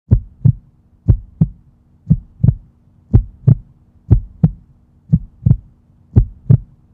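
Heartbeat sound effect: seven pairs of low thumps, lub-dub, about one pair a second, over a faint steady low hum.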